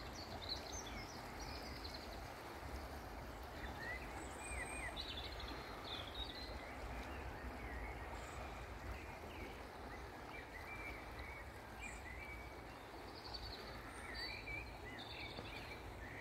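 Birds calling and singing in short, scattered chirps, over a steady low background rumble.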